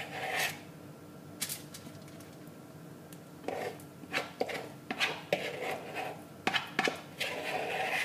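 A spoon scraping and knocking against a mixing bowl as soft oatmeal-banana cookie dough is scooped out. There are a few scattered strokes at first, then a busier run of scrapes and taps from about three and a half seconds in.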